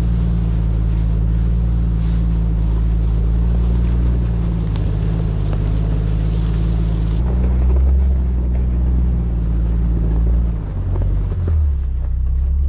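Jeep engine running steadily under light load while driving slowly, a low droning hum. The sound changes abruptly about seven seconds in, and the engine note shifts near the end.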